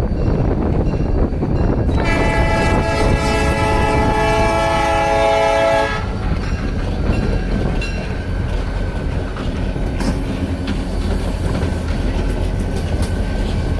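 New-cast Nathan P3 three-chime train horn sounding one chord for about four seconds, starting about two seconds in, over the steady rumble of a passing train. After the horn stops, the rumble goes on with wheels clicking over the rail joints.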